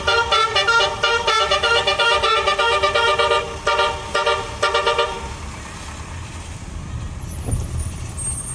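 Basuri 'telolet' musical horn on a medium tour bus playing a quick tune of short tooting notes that stops about five seconds in. A low rumble follows, with a single thud near the end.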